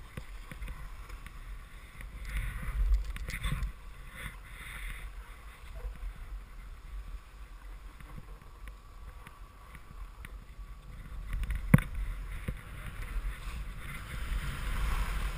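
Skis sliding and scraping over chopped-up snow through downhill turns, the hiss swelling with each turn, over wind buffeting the microphone. One sharp knock about twelve seconds in.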